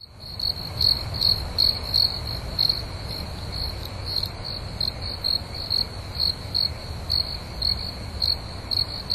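Crickets chirping in a steady rhythm, about three chirps a second, over a low rumble.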